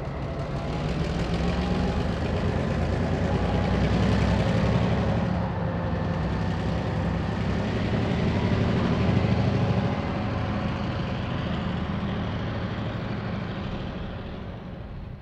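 Heritage EMD diesel locomotives, Y133 with a second mainline diesel, running under power: a loud, steady diesel engine rumble with a constant engine note, swelling twice and easing off near the end.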